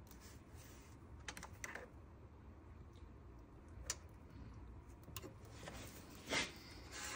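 Faint, scattered small clicks and light taps of wires and a wire connector being handled as two turn-signal wires are joined into one, the loudest about six seconds in.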